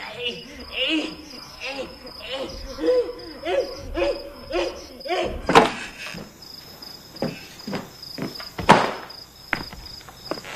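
Crickets chirping steadily at night. Over them, a man's voice makes short rhythmic grunts about twice a second for the first five seconds, then a loud knock like a door banging about halfway through, lighter knocks, and another loud knock near the end.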